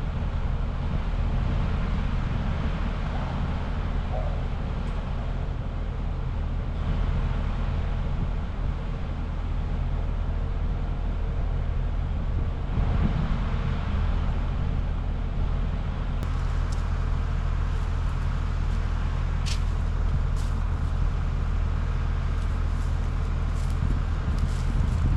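Skid steer engine running steadily under load while the machine works in soft, wet ground and bogs down. A few sharp clanks come in the second half.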